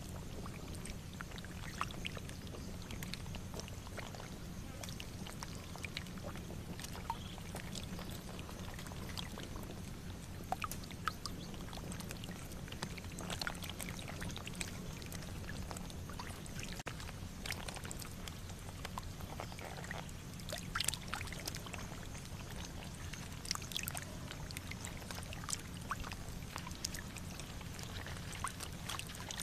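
Shallow water splashing and sloshing in small irregular bursts, as hands work through muddy water, over a steady low hum.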